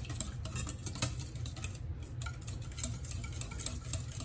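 Wire whisk beating a mustard-based sauce in a stainless steel mixing bowl: rapid, irregular clicking and tapping of the wires against the bowl, with one sharper click about a second in.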